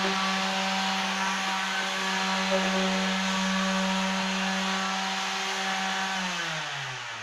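Corded electric hand sander running against a plastered wall: a steady motor hum over a gritty sanding hiss. About six seconds in, the hum falls in pitch and fades as the motor winds down.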